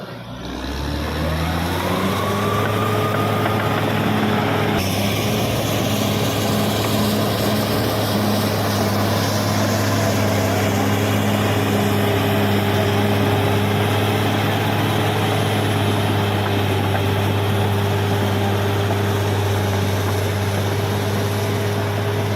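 Bulldozer diesel engine revving up over the first two seconds, then running steadily under load at high revs.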